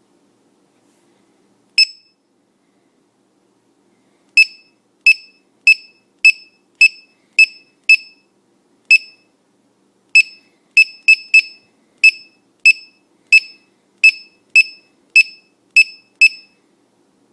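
Buzzer of a 1S-8S LiPo battery voltage checker giving short, sharp, high beeps. There is one single beep, then a run of about seven at under two a second, a lone beep, and a longer run of about a dozen.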